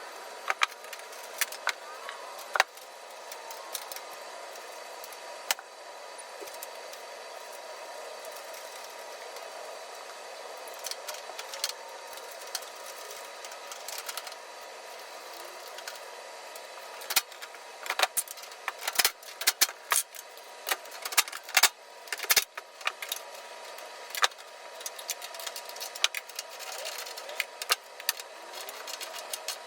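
Scattered metal clicks and clinks of hardware and tools being handled while assembling a steel tool cart, over a steady background hum; the clinks come thicker from a little past halfway.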